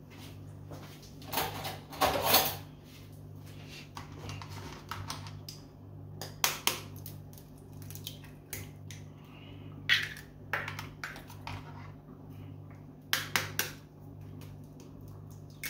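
Eggs being cracked with a fork over a stainless-steel mixing bowl: scattered sharp taps and clinks of metal on eggshell and bowl, a quick cluster of them near the end. A low steady hum lies underneath.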